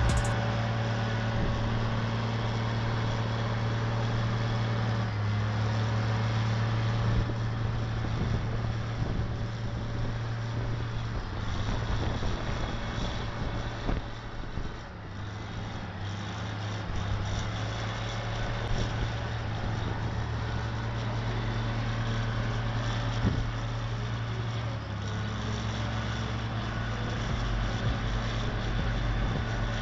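Heavy truck engine running steadily, its note stepping up and down in pitch a few times as the throttle or load changes.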